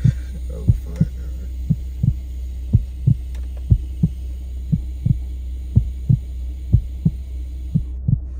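Bass-heavy music beat: low kick-drum thumps about three a second over a steady low hum.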